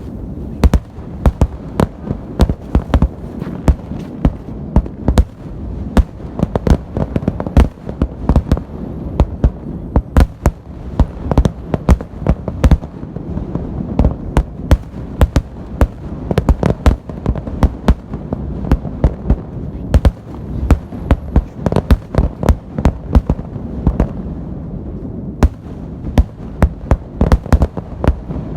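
Fireworks salute: a dense, continuous barrage of shell bursts, several sharp bangs a second over a steady low rumble.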